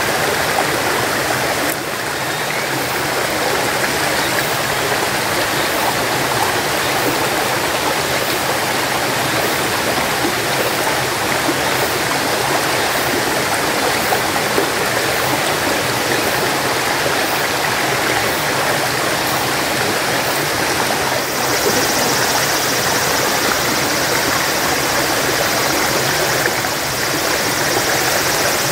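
A stream running steadily over rocks.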